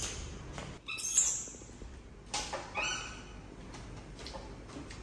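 Baby monkey squeaking: a short, high, falling squeal about a second in, then a few more high squeaks about two and a half to three seconds in. A couple of light clicks are heard with them.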